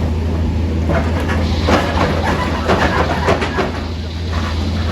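A heavy engine running steadily, with a stretch of clattering and knocking over it about a second in that dies down near the end.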